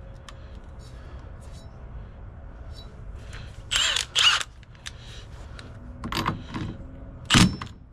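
Ratchet wrench tightening the steering-column nut onto a quick-release hub adapter, in a few short bursts of clicking with light metal handling clicks between them.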